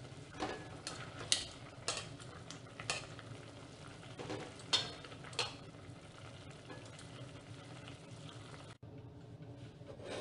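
Food sizzling in a cooking pot while being stirred with a spoon, which knocks against the pot several times. Near the end the sizzle cuts off abruptly and it goes quieter.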